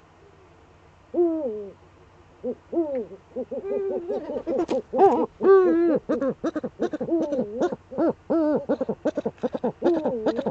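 Eurasian eagle-owl cackling in its nest niche: a couple of single calls, then from about three and a half seconds in a fast run of cackling calls that come quicker and quicker. Scratching clicks of the owl scraping in the nest hollow run through the second half.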